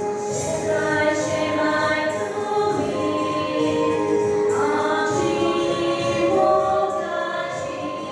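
A small group of young women singing a welcome song together into microphones, with long held notes.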